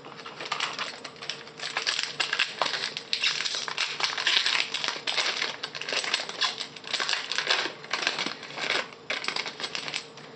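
Foil wrapper of a Topps Chrome trading-card pack crinkling and crackling as it is handled and torn open.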